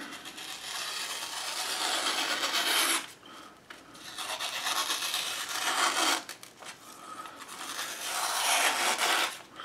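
Zero Tolerance 0452CF folding knife's S35VN edge drawn through magazine paper in three long cuts of two to three seconds each, with short pauses between. The edge is already sharp before stropping.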